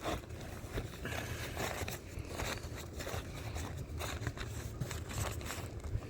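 Damp butcher paper rustling and crinkling in irregular strokes as it is folded tightly around a brisket, over a low rumble.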